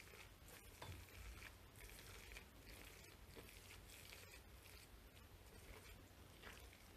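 Faint, irregular crunching and rustling of damp rice bran (a nukadoko pickling bed) as a hand digs into it and presses it around an avocado half.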